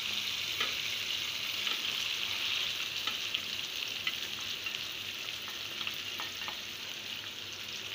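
Hot oil sizzling steadily in a frying pan as spice-marinated goat liver pieces are tipped in onto cooked-down tomatoes, with a few light knocks.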